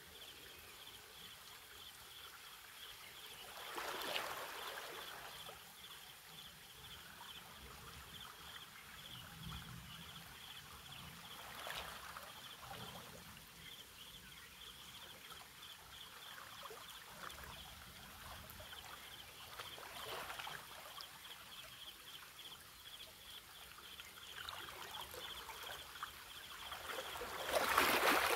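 Small waves washing and lapping against shoreline rocks, swelling about every eight seconds and loudest near the end, over a steady high, rapidly pulsing insect-like trill.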